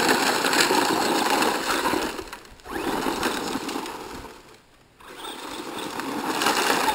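Battery-powered RC truck's electric motor running under throttle as the truck is driven. The sound cuts off briefly about two and a half seconds in, then fades out again around the middle as the throttle is let off, before picking back up.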